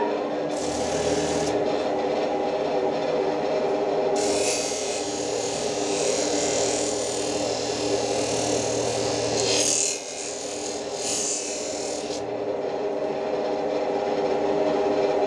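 Pedestal grinder motor running with a steady hum while a steel cleaver blade is pressed against its spinning wheel, giving a hissing grind briefly near the start and then steadily from about four seconds in until about twelve seconds in.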